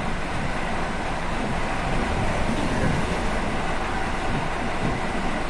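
ED4M electric multiple unit train in motion: steady running noise from the moving train.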